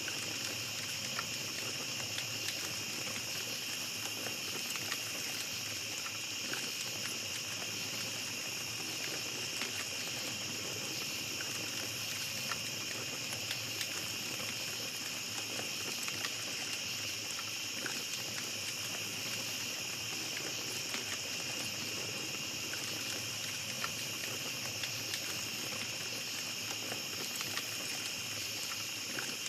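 Small campfire crackling, with light scattered pops and ticks, over a steady high chorus of night insects.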